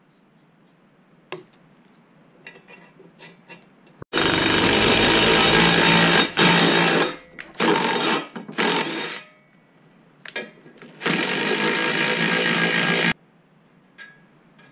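Cordless impact tool hammering in five bursts, the first and last about two seconds long and three short ones between, as it works the EGR tube fitting loose from the exhaust manifold. Light metal clicks and clinks come before and after.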